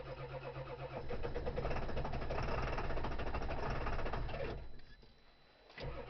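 Cold diesel engine being cranked over by its starter motor, a quick even churning that does not catch and run. The cranking stops briefly about three-quarters of the way through, then starts again near the end.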